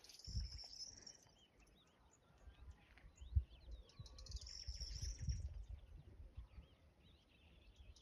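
Countryside ambience of small birds chirping, with a high buzzing trill in two stretches: about the first second, and again around four and a half to five and a half seconds in. Scattered low rumbles run underneath, with a single thump a little over three seconds in.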